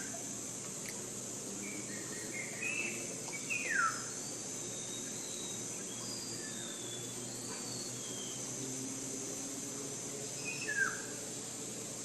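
Forest ambience: a steady high drone of insects under scattered bird calls. Two louder calls slide steeply downward, about three and a half seconds in and again near the end, with a few softer chirps and thin high notes between.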